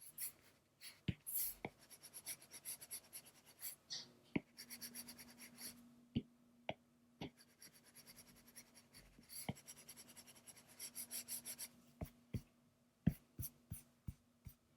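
Drawing strokes being laid down in quick scratchy runs, with sharp taps of the drawing tool, as colour is shaded in. A faint steady hum joins about four seconds in.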